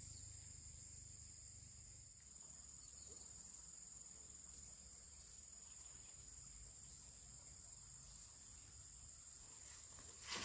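Faint, steady, high-pitched chorus of insects such as crickets droning without a break, over a low rumble. There is one short knock near the end.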